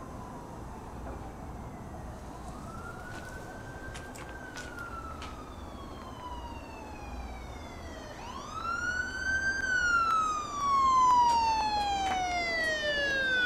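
An emergency-vehicle siren wailing in slow sweeps, each rising quickly and falling slowly. About eight seconds in, it rises again, louder, and falls away.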